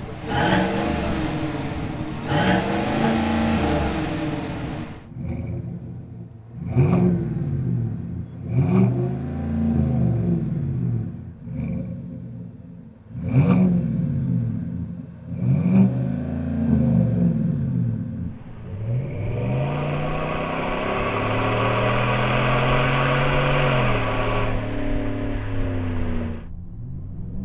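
A GMC Sierra 1500's 5.3-litre V8 revved in a series of short throttle blips, its pitch rising and falling with each one, first through the factory exhaust and then through a Rough Country dual rear-exit exhaust. Near the end a longer pull climbs and then holds steady, heard close to the exhaust tips while driving, and cuts off suddenly.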